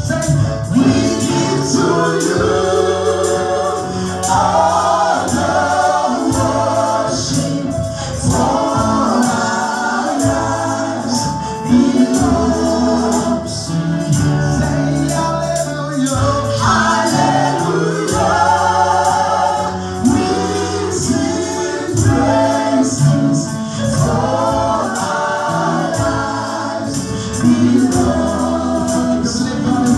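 Gospel worship song: a choir singing over a live band, with a bass line stepping between notes and steady percussion such as shakers or tambourine.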